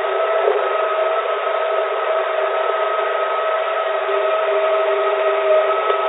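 Steady background noise of a very old cockpit voice recorder: a thin hiss with no bass and no top end, with a few steady humming tones running through it unchanged.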